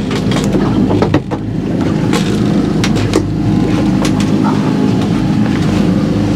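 Boat's outboard motor running steadily with a low, even hum. Several sharp clicks and taps in the first half, from fishing tackle being handled.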